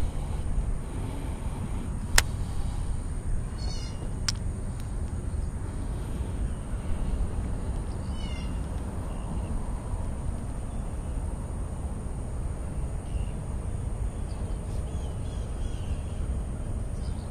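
A bird calls a few times in short, quick series of high notes over a steady low outdoor rumble. Two sharp clicks come about 2 and 4 seconds in.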